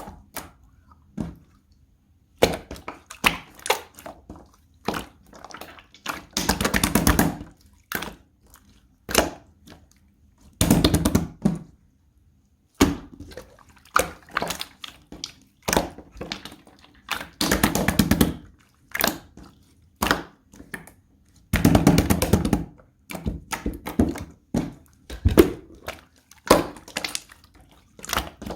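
Clear slime being squished and pressed by hand: repeated wet clicks and pops, with four runs of rapid crackling pops about a second long each.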